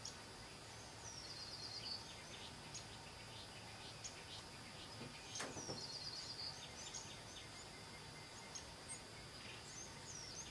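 Small songbirds singing and chirping, faint and high-pitched. The same short song phrase comes twice, about a second in and again about five seconds in, with scattered chirps between. A single sharp click comes about five seconds in.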